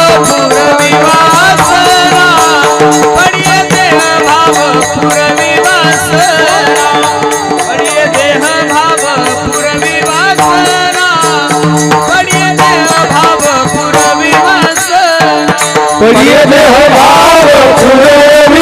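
Kirtan devotional music: a wavering melody over a steady held drone, with a fast, even percussion beat. About sixteen seconds in, a man's singing voice comes in louder over it.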